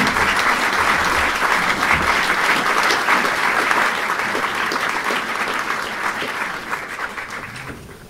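An audience applauding, a dense, steady clapping that thins out and fades near the end.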